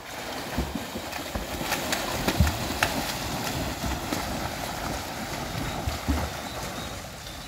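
Several swimmers racing freestyle across a pool, kicking and stroking hard: a steady rush of churning, splashing water.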